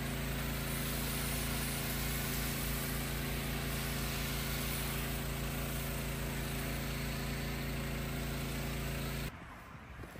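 Pressure washer running, its motor and pump humming steadily under the hiss of spray as a foam cannon coats the car in foam. The sound stops abruptly near the end.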